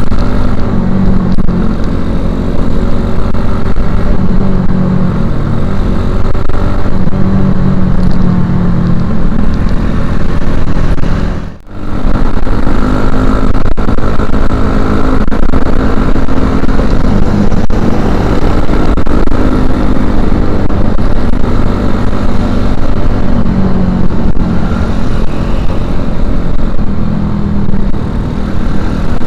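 Suzuki Shogun Axelo R 125 cc single-cylinder four-stroke engine running loud through a stock Suzuki Satria FU 150 silencer under riding, its note rising and falling with the throttle. The sound dips briefly about eleven seconds in.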